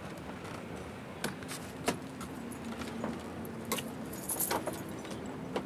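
A bunch of keys jingling, with several sharp metallic clicks from the truck's cab door handle and latch. The loudest jingle comes about three-quarters of the way through.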